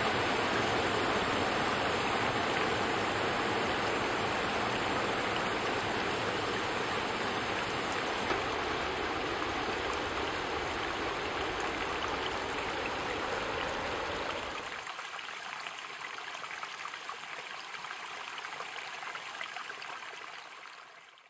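Steady rushing of a dam spillway's rooster tail: water shot off the bottom of the concrete chute into a high plume of spray and falling back. About two-thirds of the way through it becomes quieter and thinner, losing its low rumble, then fades out at the end.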